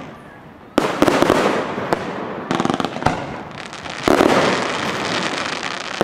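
Aerial firework shells bursting overhead. After a sharp bang about a second in, several more bursts follow, each trailing off into a dense, rapid crackle.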